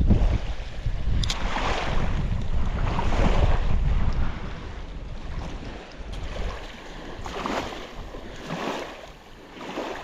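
Strong wind buffeting the microphone in heavy gusts that ease after about four seconds, with waves washing in against the shore in swells about once a second.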